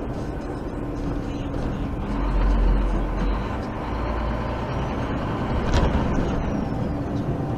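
HGV cab noise while driving slowly: the lorry's engine runs steadily over road rumble. A deeper low rumble swells for about a second and a half a couple of seconds in, and a short sharp sound comes near six seconds in.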